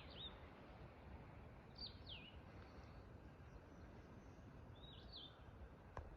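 A songbird calling three times, each call a quick pair of high whistles sliding downward, over a faint steady outdoor hiss. A single click near the end.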